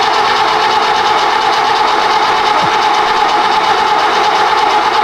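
Freshly rebuilt BMW E21 320 engine running steadily just after its first start since the rebuild, an even mechanical drone with a fast, regular beat.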